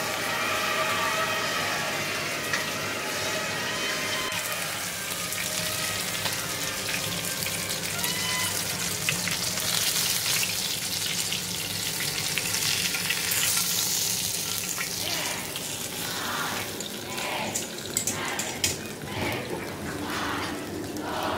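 Fish frying in hot oil in a pan: a steady sizzle with dense crackling and spattering pops.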